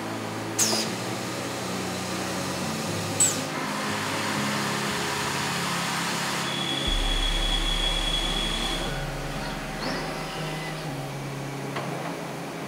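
Factory machinery running with a steady hum and hiss. Two sharp clicks come in the first few seconds, and a high steady whine with a deep rumble lasts about two seconds around the middle.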